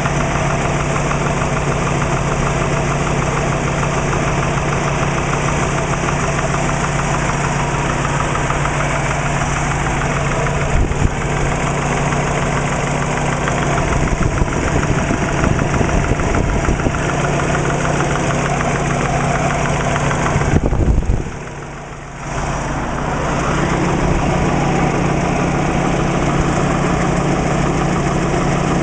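Subaru WRX flat-four boxer engine idling with a rapid, steady knocking from piston slap. The level dips briefly about two-thirds of the way through, then the idle resumes.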